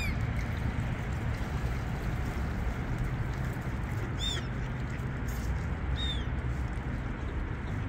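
Gulls calling: three short, harsh, arched cries, one at the start, one about four seconds in and one about six seconds in, over a steady background rumble.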